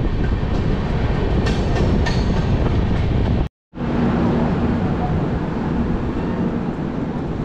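Passenger train running on the rails, heard from outside the coach: a steady rumble of wheels on track. The sound cuts out for a moment about halfway through, then carries on slightly quieter.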